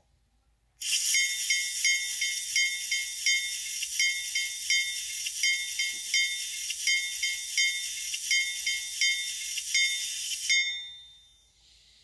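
Locomotive bell sound from an ESU LokSound 5 Micro sound decoder, switched on with F1 and played through the tiny speaker of an N-scale GE U25B model. The bell rings evenly about three strikes a second for about ten seconds, thin and high with no low end, then stops and fades out.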